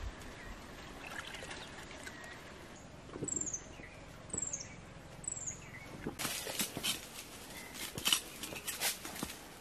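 A bird gives three short, high, falling whistled calls about a second apart. Then, from about six seconds in, dry leaf litter crackles and rustles, with the loudest crackle near the end.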